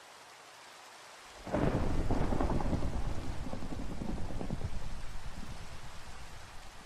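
Steady rain, then a clap of thunder about a second and a half in that rolls on and slowly dies away over about five seconds.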